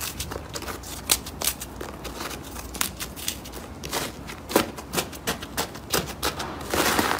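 Slime being squeezed and worked by hand, giving irregular sharp clicks and crackling pops, busiest near the end.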